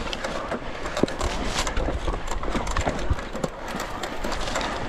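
E-mountain bike rolling over rough trail: the tyres run on the ground while the bike rattles with a fast, irregular stream of knocks and clicks over a steady low rumble.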